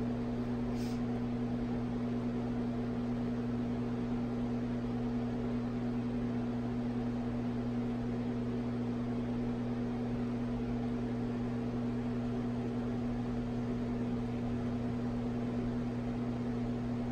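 Steady electrical hum over a soft hiss from stirring hot plates running, heating and magnetically stirring flasks of nutrient agar that are not yet boiling. A faint brief click about a second in.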